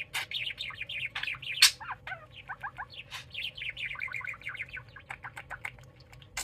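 Budgerigar chittering: fast runs of short, falling chirps with scattered sharp clicks, one loud click about a second and a half in.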